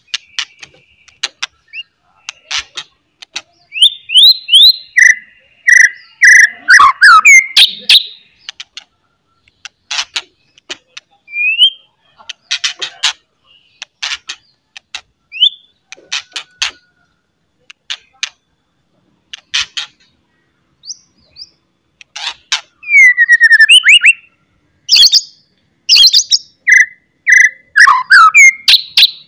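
Male white-rumped shama (murai batu) singing: loud, harsh clicking chatter notes (cetrekan) mixed with sharp whistled phrases. The whistles come in bursts about four seconds in and again from about 22 seconds.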